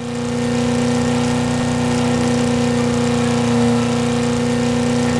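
Car engine sound effect running at a steady, unchanging pitch, swelling in over the first half second and then holding level.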